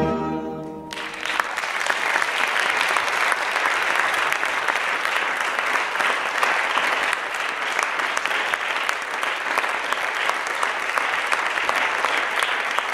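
Recorded ballet music ends on a final chord within the first second, and audience applause breaks out and continues as steady clapping.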